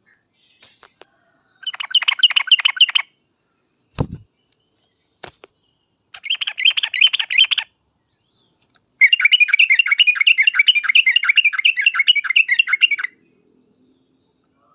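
Yellow-vented bulbul (trucuk) singing three phrases of rapid chattering notes, the last phrase the longest at about four seconds. A single short thump falls between the first two phrases.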